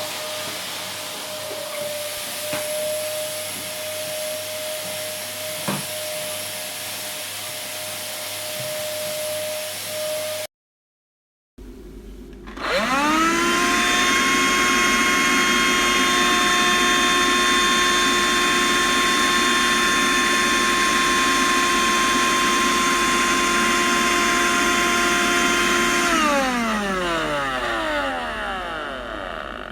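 Vacuum cleaner running steadily with a high whine, then a cut to another vacuum cleaner that is switched on and spins up to a steady run. About four seconds before the end it is switched off, and its pitch falls as the motor winds down.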